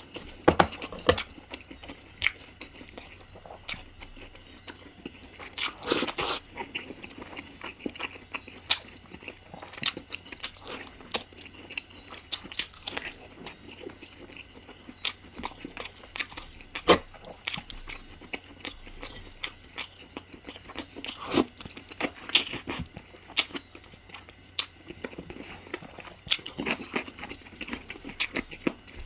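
Close-miked mukbang eating sounds of a person eating spicy chicken curry: irregular bites, crunches and chewing clicks, thickening into short clusters now and then.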